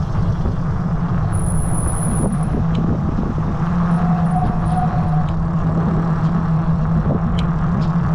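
A small vehicle's motor humming steadily at one even pitch as it rides along, over a rough rumble from the ride with a few light knocks.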